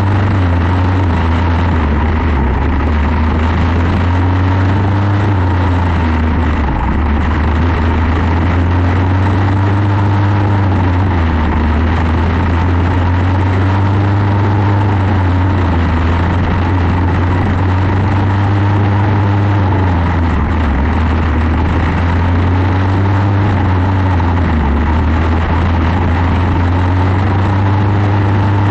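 Quarter midget race car's Briggs & Stratton Animal single-cylinder engine running at racing speed. Its pitch rises and falls in a regular cycle about every four to five seconds, as it comes off throttle and back on through each lap of the oval.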